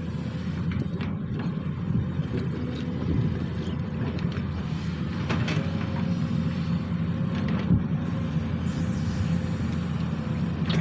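Sany SY215C excavator's diesel engine running steadily under work, with a higher steady whine coming in about halfway through and a few light knocks.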